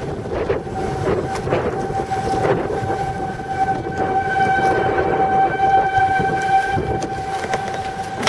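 A steady howl holding one note, with a few overtones, that grows clear about two seconds in, over loud rushing wind on the microphone.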